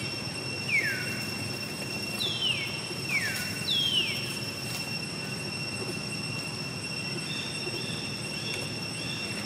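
Macaque squeals: four short, high calls, each sliding down in pitch, in the first half, over a steady high drone of insects. A few faint short high notes follow near the end.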